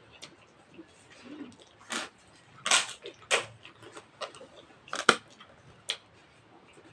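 Close-up eating sounds: chewing and lip-smacking over a mouthful of rice and mutton curry, heard as irregular wet clicks and smacks, the loudest a little over halfway through.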